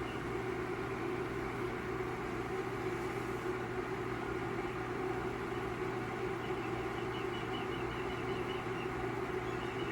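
Steady whir of the small cooling fans in a NuWave induction cooktop and a Bluetti power station's AC inverter running under heavy load, while water heats in a stainless steel kettle toward the boil. From about six and a half seconds in, a rapid run of high repeated chirps from osprey chicks comes over a livestream.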